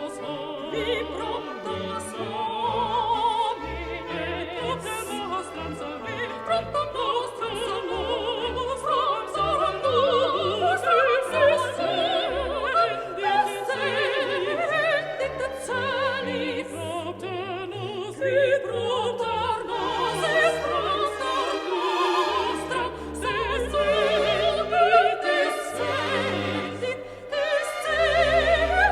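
Background music: an operatic voice singing with strong vibrato over an orchestral accompaniment.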